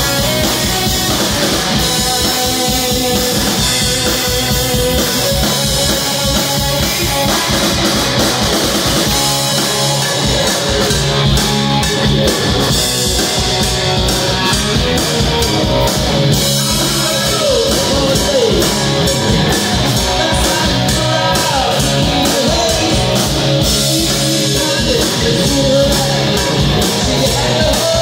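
Live rock band playing loud: electric guitars and bass over a drum kit, in a steady full-band groove.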